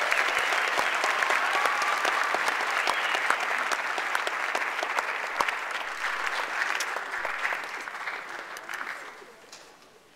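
Audience applauding steadily, the clapping tapering off and dying away near the end.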